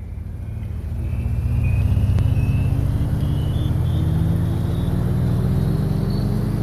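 A steady, loud low rumble like a vehicle engine. It swells over the first two seconds, then holds while its pitch slowly rises.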